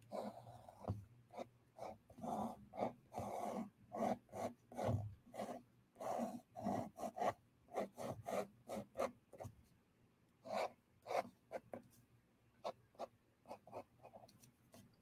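Ink pen strokes on drawing paper: short strokes come irregularly, a few a second, with a brief pause about two-thirds of the way through.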